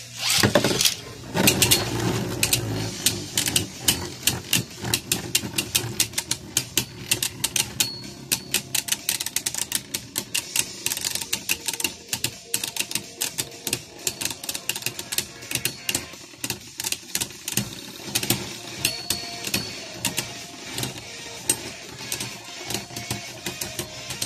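Beyblade Burst tops Lucifer the End and Helios Volcano spinning and clashing in a plastic stadium. A loud burst of hits comes in the first two seconds, then a long run of rapid, irregular sharp clicks as the tops knock together and against the stadium walls.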